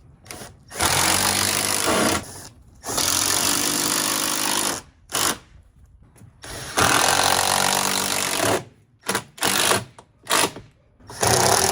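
Handheld power drill run in repeated loud bursts, drilling pilot holes and driving screws into the camper's wood framing: three runs of about two seconds each, then several short quick triggers near the end.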